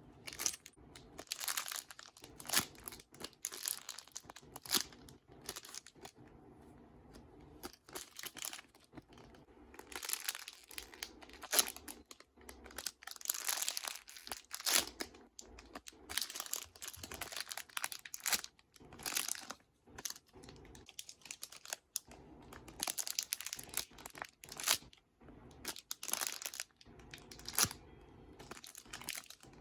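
Irregular bursts of crinkling and rustling from squishy toys and plastic being handled close by, many short crackly rustles a second or less long.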